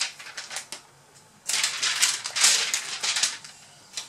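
Protective plastic film being peeled off a new laptop display panel: a few light clicks, then a crackling, rustling tear lasting about two seconds.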